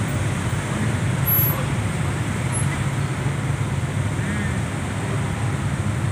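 Road traffic in a slow jam, with cars and motorcycles close by idling and creeping forward: a steady low engine rumble.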